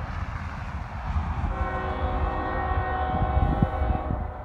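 Union Pacific freight locomotive's air horn blowing in the distance: the end of one blast fades in the first half second, then a long steady blast sounds from about a second and a half in until just before the end, over a steady low rumble.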